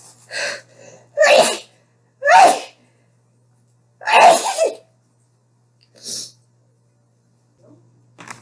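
A person sneezing three times in quick succession, about a second apart, the third the longest, followed a little later by a short breath.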